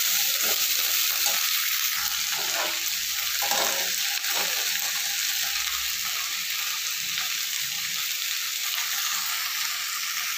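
Sliced okra and onions sizzling as they fry in a steel kadhai, with a spatula scraping and stirring them through the first few seconds, then a steady sizzle.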